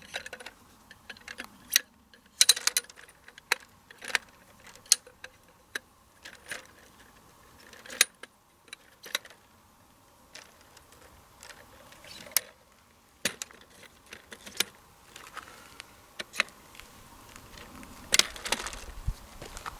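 Shock-corded aluminium poles of a Helinox Sunset camp chair frame snapping together into their sockets and hubs: a string of sharp clicks and light metallic clacks, irregularly spaced, one at a time.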